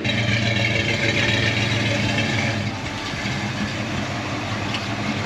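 1980 Dodge Ramcharger's carbureted engine idling steadily through its new exhaust, a little louder in the first couple of seconds.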